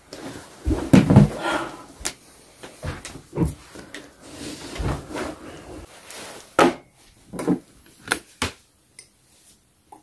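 Irregular knocks, clicks and clatter of objects being handled and set down on a wooden table, with a few sharp clicks in the second half.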